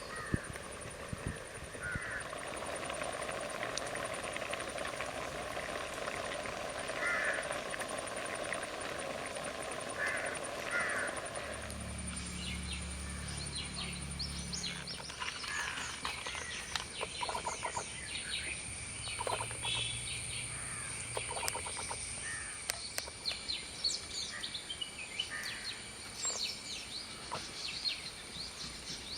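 Birds chirping and calling, with many short calls in the second half, over a steady hiss that fades out about halfway through.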